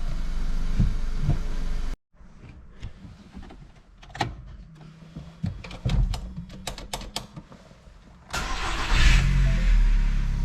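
VW Golf Mk5 engine running with a steady low hum and no rattle left, now that the fuel hoses are tied down inside the frame. It cuts off suddenly about two seconds in, giving way to a quiet stretch of scattered clicks and knocks. About eight seconds in the engine comes back loudly with a brief hiss.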